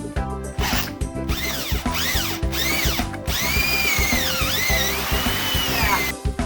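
Power drill enlarging a lock-pin hole in a school bus back door, its pitch rising and falling repeatedly as the trigger is squeezed and eased, over background music with a steady beat.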